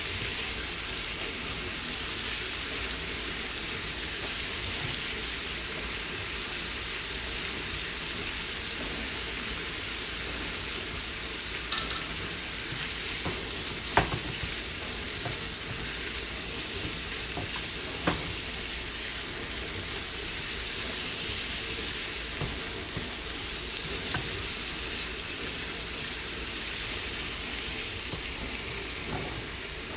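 Chicken pieces sautéing in oil and lime juice in a pan, sizzling steadily, with a few sharp clicks near the middle.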